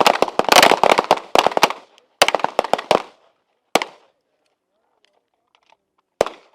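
A line of handguns firing together: a dense volley of overlapping shots for about two seconds, a second shorter cluster, then scattered last shots, the final one near the end.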